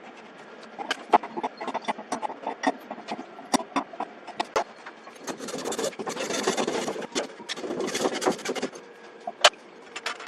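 Scattered light clicks and knocks of hand-tool and fitting work, with two scraping, rasping passes in the middle, the first about two seconds long and the second about one.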